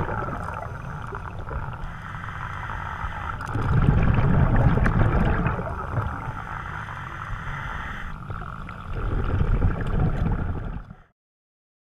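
Scuba diver breathing underwater through a regulator: exhaled bubbles rumble in surges about five seconds apart, with a steadier hiss between them. The sound cuts off suddenly about a second before the end.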